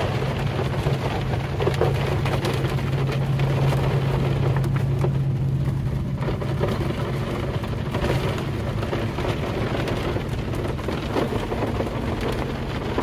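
Heavy rain pattering on a van's roof and windows, heard from inside the cabin as a dense, steady patter. A low steady hum runs under it, strongest for the first six seconds or so.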